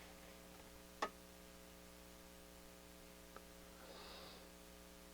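Near silence: a steady low electrical hum, with one sharp click about a second in and a fainter tick later.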